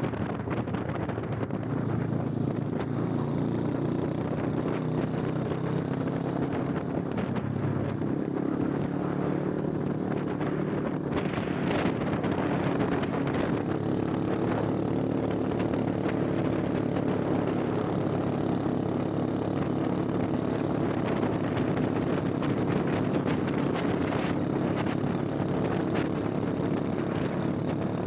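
Motorcycle engine running steadily while riding, its pitch holding even with small shifts in speed.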